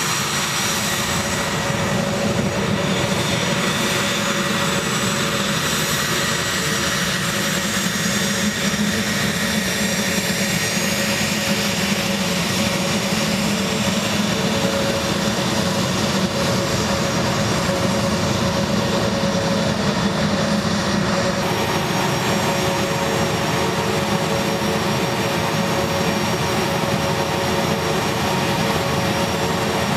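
An A-10 Thunderbolt II's twin General Electric TF34 turbofan engines running at taxi power: a steady jet rumble with a steady high whine over it.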